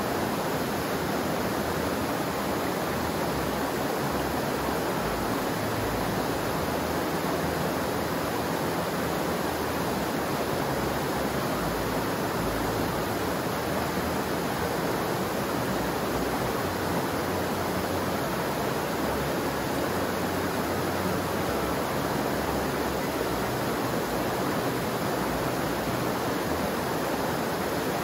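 Rushing water making a steady, even roar with no breaks or changes.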